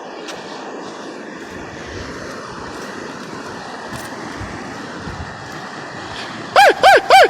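A dog yelping sharply three times in quick succession near the end, each yelp rising and falling in pitch, over a steady rushing background; the yelps are those of a hurt animal.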